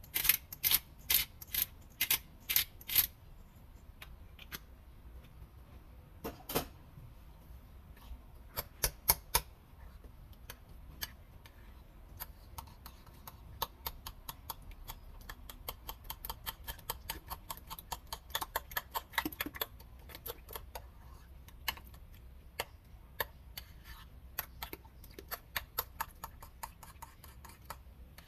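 Metal spoon clinking against a ceramic bowl in quick runs of light taps while beating raw eggs for a batter. At the start, a series of sharp clicks about three a second as a seasoning shaker is shaken over the bowl.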